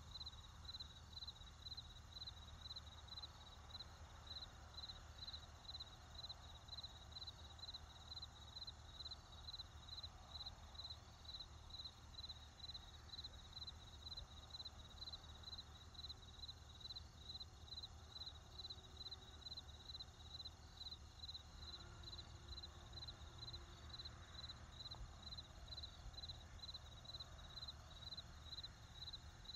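Faint crickets chirping steadily at night, a high, evenly repeating chirp over a low background rumble.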